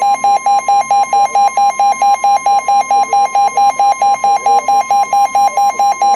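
Weather radio warning alarm: a steady tone near 1 kHz, the broadcast warning alert tone that comes before a new warning is read, with rapid alarm beeps pulsing over it about five times a second. The beeping stops abruptly at the very end while the steady tone carries on.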